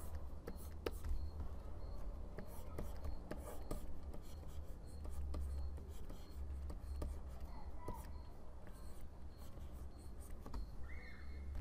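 Pen-tablet stylus scratching and tapping on the tablet surface as lines are drawn: many light taps and short strokes over a low hum.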